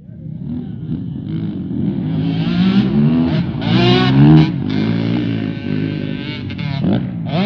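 Motocross bikes' engines revving as they ride past, the pitch rising and falling with throttle and gear changes. Loudest about four seconds in, when two bikes pass close by.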